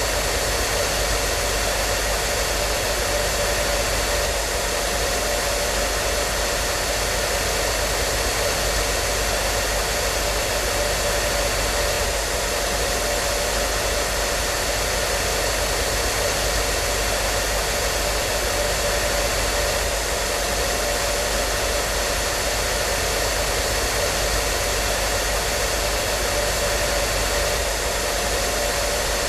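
Hair dryer running steadily: a constant rushing of air, unchanging, with a few faint steady tones in it.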